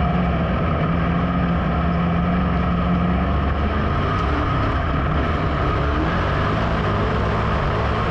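Dirt modified race car's V8 engine running steadily at low speed, heard from inside the cockpit, with other modifieds' engines running around it.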